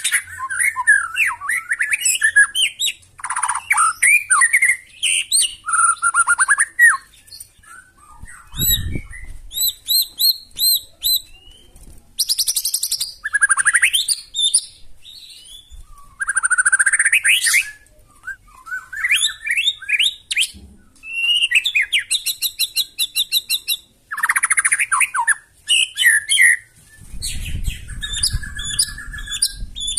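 White-rumped shama singing a loud, varied song of whistled glides, rapid trills and harsh notes in quick succession. A low thump about nine seconds in, and a low rumble under the song near the end.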